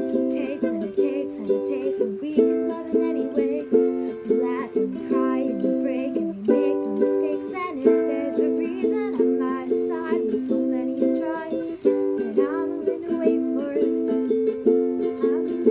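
Upbeat music led by strummed ukulele chords, with a light, regular percussive tick over it.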